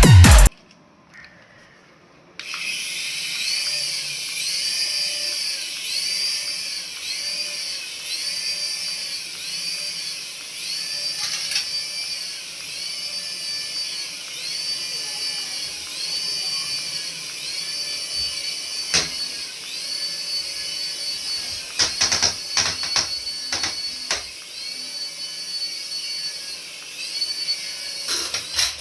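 Battery-powered toy vehicle running: a small electric motor whines steadily under a repeating electronic tone that rises and falls about once a second. A few sharp knocks come in the second half.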